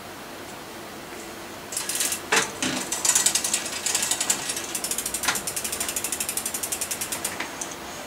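Mountain bike's rear hub freewheel clicking rapidly as the rear wheel is spun, with a couple of knocks along the way. The clicks then settle into an even tick of about eight a second and fade out near the end as the wheel slows.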